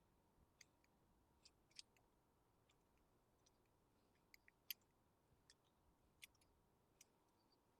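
Near silence with faint, irregular small clicks and ticks, a dozen or so spread unevenly, the loudest about halfway through.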